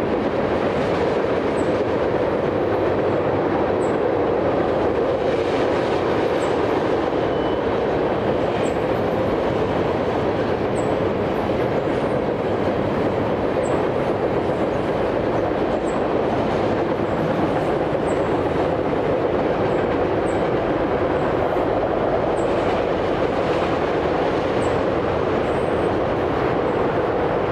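Freight train of autorack cars rolling past at steady speed: a continuous rumble of wheels on rail, with faint ticks about every two seconds.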